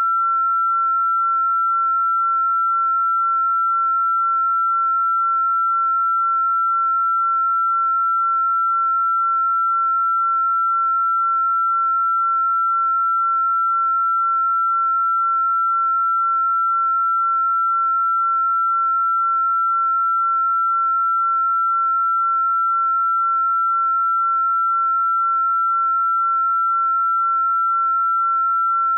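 A single pure sine-wave tone, electronically generated, held at one fairly high pitch without any change in pitch or loudness.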